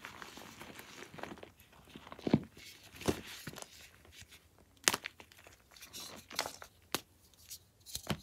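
Blocks of gym chalk being crumbled and broken by hand: soft crumbling with several sharp crunches and snaps at irregular intervals.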